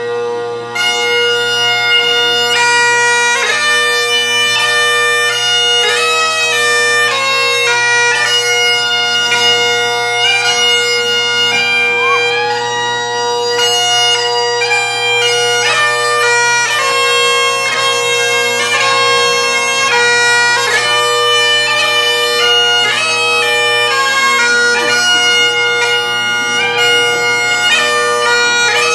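Great Highland bagpipe playing a fast, ornamented tune on the chanter over the steady hum of its three drones.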